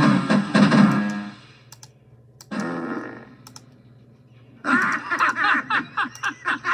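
Cartoon soundtrack playing from a TV and picked up in the room: a loud burst of cartoon sound over the first second and a half, a shorter one about two and a half seconds in, then music with voices starting near the end.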